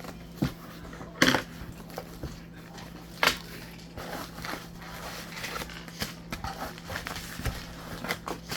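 A shipping box and its packaging being handled and opened: a few sharp knocks, then irregular crackling and rustling.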